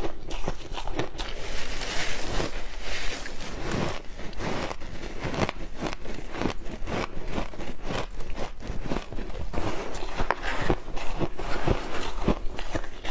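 Refrozen shaved ice crunching: hands dig into and squeeze handfuls of the icy granules, and teeth bite into a packed clump, giving a dense, irregular run of crunches.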